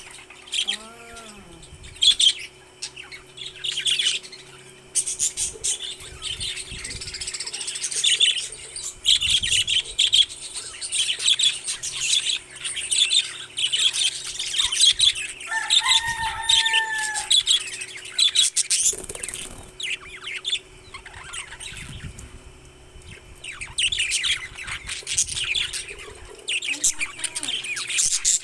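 Pet parrots chirping and chattering, with dense rapid high chirps throughout and a short gliding call about sixteen seconds in. A faint steady hum sits underneath.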